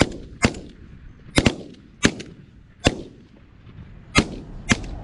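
A rapid, irregular volley of shotgun shots at waterfowl, about eight sharp reports in five seconds, some in quick pairs, each with a short echo.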